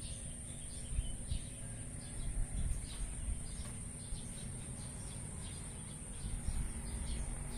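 Steady high-pitched insect drone, with a few short faint bird-like chirps and a low rumble on the microphone.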